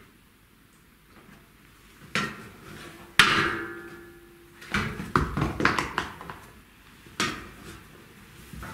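Heels of suede pumps and stockinged feet knocking on the steps of a metal stepladder as a woman climbs down. The loudest knock, about three seconds in, sets the ladder ringing briefly, and a quick run of knocks follows from about five seconds in.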